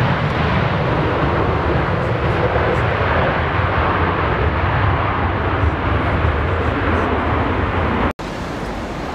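Jet engines of a Boeing 737-800 (CFM56 turbofans) giving a loud, steady roar as the airliner rolls out along the runway after touchdown, with wind rumbling on the microphone. The roar cuts off abruptly about eight seconds in, leaving a quieter rush of wind.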